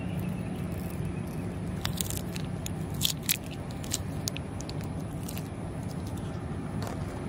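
Plastic liquid cat-treat pouch crinkling and clicking as it is squeezed out over a steel food dish. There are a few sharp clicks, the loudest a little after three seconds in, over a steady low background hum.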